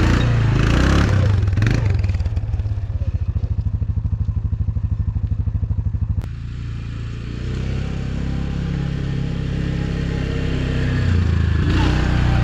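Quad bike (ATV) engine running as it passes pulling a loaded firewood trailer, with clatter from the trailer. The engine's pulsing note fades as it moves away. About six seconds in the sound changes abruptly to a steady engine hum that grows louder near the end as the quad comes closer.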